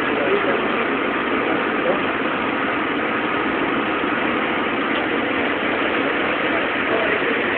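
Steady, unchanging drone of running machinery.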